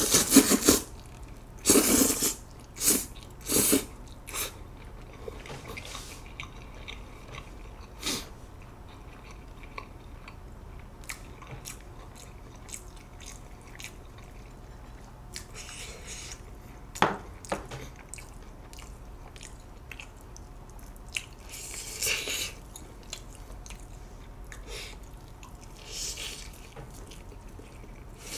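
Close-miked eating: loud slurps of spicy mixed barley noodles in the first few seconds, then quieter chewing with occasional sharp clicks.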